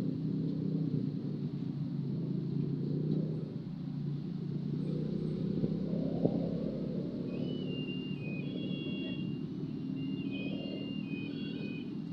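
Low steady outdoor rumble, with short high chirps from about seven seconds in.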